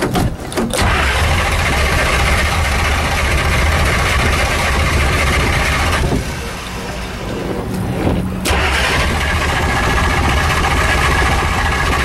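Shelby Daytona's engine cranking on its starter without catching, in two long goes with a let-up about six seconds in. It is a hard cold start after three months sitting, which the owners put down to the engine not getting fuel.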